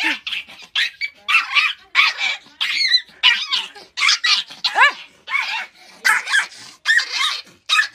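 A dog barking over and over in quick, short barks, about two a second, some of them higher, yipping calls.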